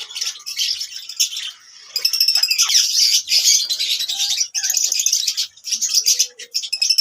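Lovebirds chirping and chattering in rapid, high-pitched strings of notes, with a short lull about a second and a half in.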